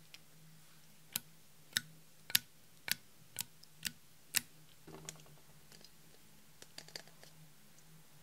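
A makeup dropper's tip tapping on a glass baking dish as drops of pink liquid are dabbed on: seven sharp clicks about two a second, then a soft rustle and a few faint ticks of handling over a faint steady hum.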